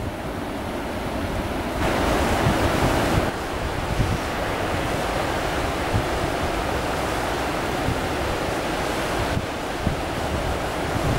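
Wind buffeting the microphone over the steady rushing hiss of the Loire in flood. The noise jumps abruptly about two seconds in, louder and brighter for a second or so, and changes again near the end.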